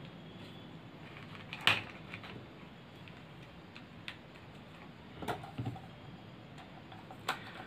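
A few scattered sharp clicks and taps from handling a hand blender's plastic motor housing and a screwdriver, the loudest about two seconds in.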